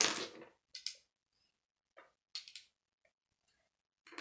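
Small plastic Lego pieces clattering and clicking as they are picked out of a loose pile on a tabletop and handled, in a few short separate rattles, the first the loudest.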